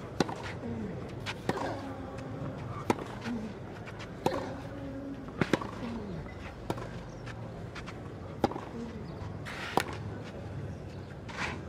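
Tennis rally on clay: sharp racket-on-ball strikes about every one and a half seconds. Some strikes come with a short grunt that falls in pitch.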